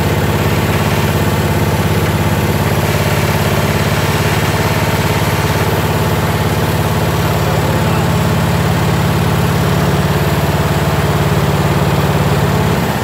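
Briggs & Stratton rear engine of a Jacobsen Homelite ride-on lawn tractor running steadily, then beginning to stop right at the end. The owner judges that it can't make enough power to run the blade.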